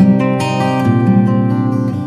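Background music: acoustic guitar playing, plucked and strummed chords that change about every half second.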